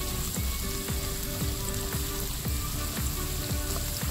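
Chopped spring onion whites sizzling in hot oil in a frying pan while a slotted spatula stirs and scrapes them in repeated strokes, about two or three a second.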